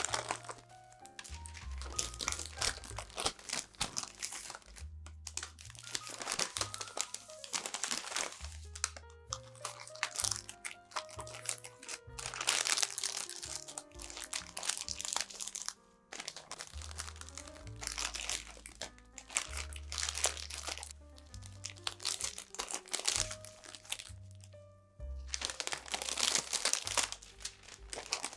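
Printed sandwich-wrapping paper crinkling and rustling in repeated bursts as it is folded tightly around a sandwich, over background music.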